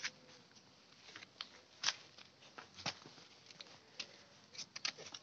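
Tomato plant leaves and stems brushing and rustling against the phone as it pushes through the foliage: short irregular crackles, a few a second.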